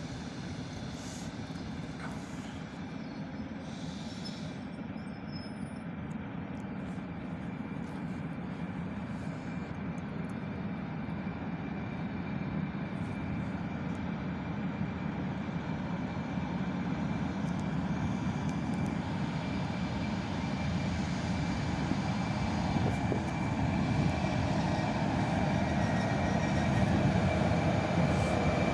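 DS3 electric locomotive hauling a passenger train, rolling slowly in toward the platform, its low rumble growing steadily louder as it nears. A thin steady high tone joins in during the second half.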